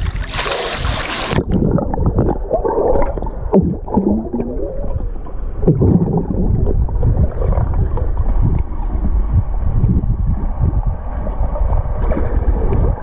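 Pool water splashing, then from about a second and a half in the sound turns muffled, heard underwater: bubbles gurgling as a swimmer breathes out, over a steady low rush of water.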